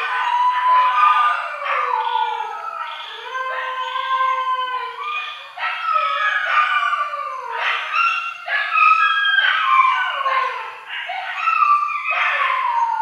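Several dogs howling together: long overlapping howls that slide up and down in pitch.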